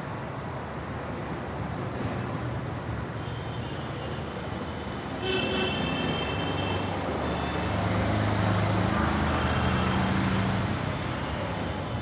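Street traffic: a continuous roar of road noise, with vehicle horns tooting briefly twice near the middle. A vehicle engine passes close from about eight to ten seconds in, louder, before easing off.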